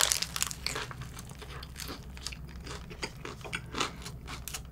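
A crunchy bite into a fried-chicken burger, then chewing with scattered crisp crackles as the fried coating breaks. The loudest crunching comes in the first second.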